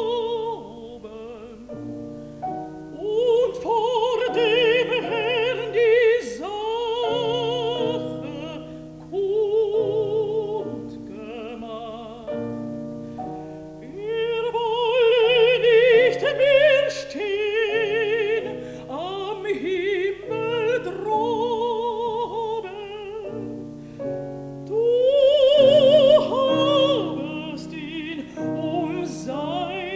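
Female classical singer with a wide vibrato singing a German lied, accompanied by piano. The voice comes in phrases with short gaps where the piano carries on alone.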